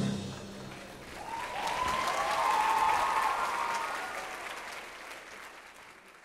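Theatre audience applauding, the clapping swelling about two seconds in and then fading out.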